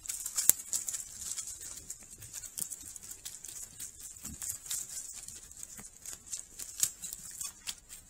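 Wild boars walking and rooting through dry beech leaf litter: a run of irregular crackles and rustles over a steady high hiss.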